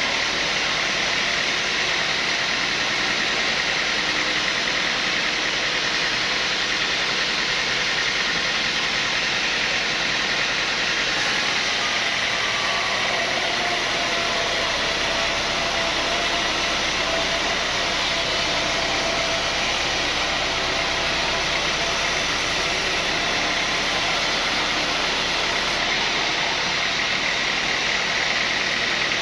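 Sawmill saw running steadily: an even mechanical noise with a constant high whine, no pauses or changes.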